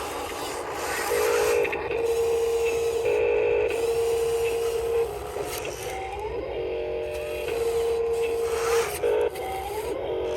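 Small electric gear motors of radio-controlled toy construction machines whining as they drive, a steady mid-pitched whine that rises in pitch several times as the motors speed up, over a grinding, rubbing noise.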